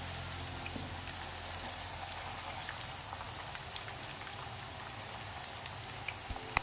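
Chicken croquettes shallow-frying in hot oil in a pan: a steady sizzle with scattered small crackles and pops.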